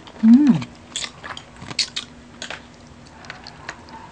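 Crab being eaten: sharp clicks and cracks of shell being broken open and chewed, scattered irregularly. A short hummed vocal sound that rises and falls comes near the start.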